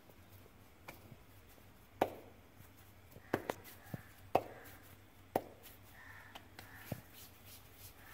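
Hands working soft naan dough into balls over a ceramic plate: quiet handling with scattered sharp taps and knocks against the plate, the loudest about two seconds in and again a little after four seconds.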